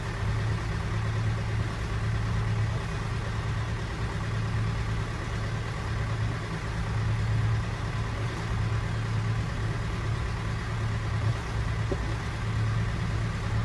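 Sailboat's fuel engine running steadily as it drives the boat under way, charging the hybrid system's batteries; a low, even hum.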